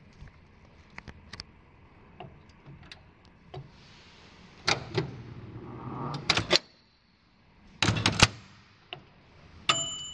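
Old black countertop microwave oven with a dial timer being tried out. Its controls and latch click and knock, it hums while it runs, the hum stops near the middle when the door release is pressed, and then the door clacks twice. Near the end a click is followed by a short, steady high electronic beep.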